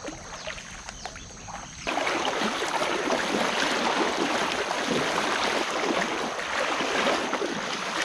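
Legs wading through a shallow river, water splashing and sloshing with each stride. It is quieter at first and turns suddenly much louder about two seconds in.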